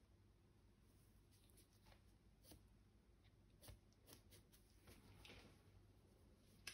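Near silence, with a few faint, short scratches of a bristle brush working oil paint on canvas, clustered in the second half.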